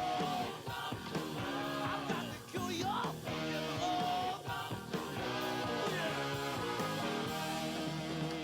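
Rock song playing, an instrumental passage led by electric guitar with bending notes.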